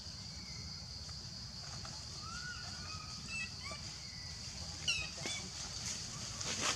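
Forest ambience: a steady high-pitched insect drone over a low rumble, with faint scattered chirps and squeaks, busiest about five seconds in.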